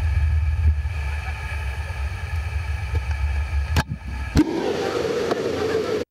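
Motorboat engine running steadily under way over rough river water. About four seconds in, after a couple of clicks, the engine drone stops and a rushing hiss takes over.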